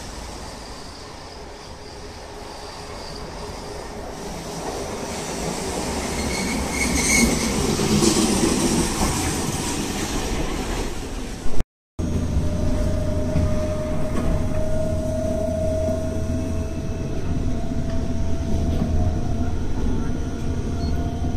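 Keifuku (Randen) tram approaching and pulling into the station, growing louder, with a brief high wheel or brake squeal about 7 seconds in. After a sudden cut, the steady rumble of a Randen tram running, heard from aboard, with a steady hum over it that rises slightly in pitch.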